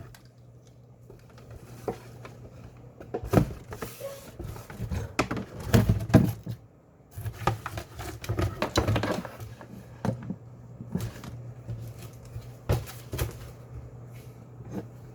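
Irregular knocks, clicks and rustling as packaging and parts are handled during unboxing.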